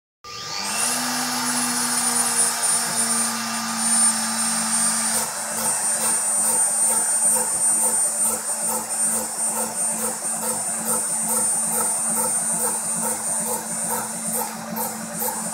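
Rotary-tool spindle on a small DIY CNC mill spinning up with a rising whine, then running at a steady high pitch. From about five seconds in, a regular pulse repeats about twice a second as the machine works through the PCB's drill holes.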